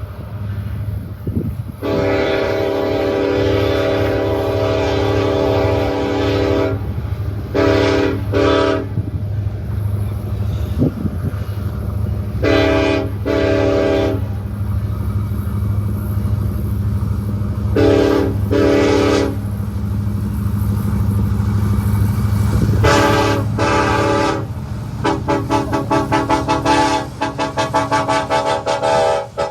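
Multi-chime locomotive air horn sounding one long blast of about five seconds, then pairs of short blasts every five seconds or so, over the steady low rumble of a train. Over the last few seconds there is a rapid run of short pulsing chords.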